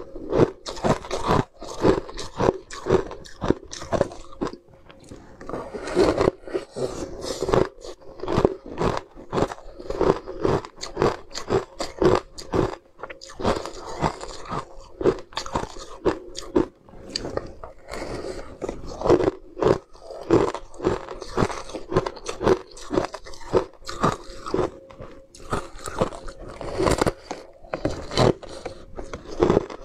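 Ice crunching between the teeth as pieces are bitten off a frozen block and chewed: repeated sharp crunches with short pauses between bites.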